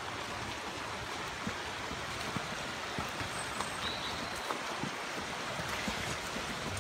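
Fast-flowing river rushing over a small waterfall and rapids, a steady roar of water. A few soft thumps sound over it.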